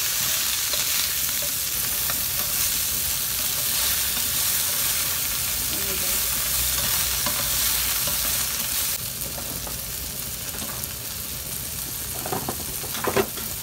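Shrimp sizzling in hot oil in a nonstick frying pan while a spatula stirs and turns them. The sizzle is steady, then drops quieter about nine seconds in, with a few knocks near the end.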